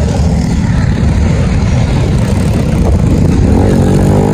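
Motorbike riding along with its engine running and wind buffeting the microphone, a loud, dense rumble. About three and a half seconds in, an engine note rises in pitch as it speeds up.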